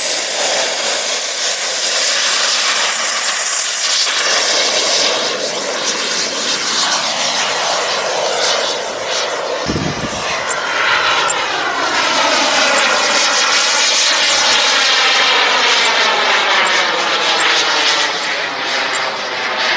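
Radio-controlled model jet's turbine engine at high power through takeoff and climb: a high whine rising in pitch over the first couple of seconds, then a steady jet rush with slowly sweeping tones as the model flies past.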